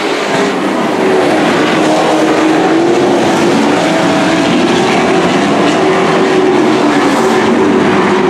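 A pack of dirt-track racing trucks' engines running hard, several engine notes rising and falling over one another as the trucks circle the track, a little louder from about a second in.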